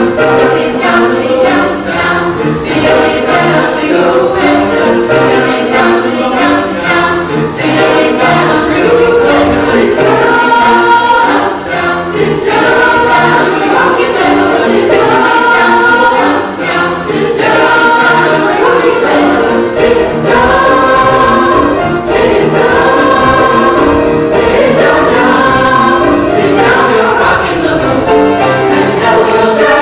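Mixed choir of teenage boys and girls singing an upbeat Broadway show tune in several parts.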